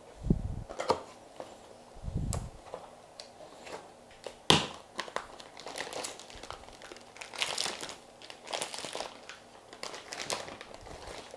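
Clear plastic wrapping on a spool of PLA filament crinkling and rustling as it is handled and pulled open by hand. Two dull thumps come in the first couple of seconds, and a sharp snap about four and a half seconds in is the loudest sound.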